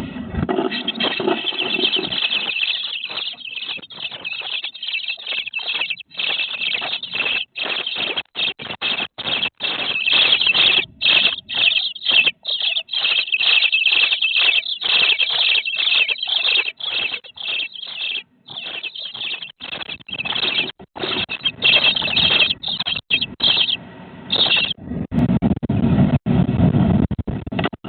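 Nestling songbirds inside a nest box, close to the microphone, calling with high, shrill begging squeals in quick broken runs. Fluttering wings and scuffling against the box mix in, with heavier rustling near the end.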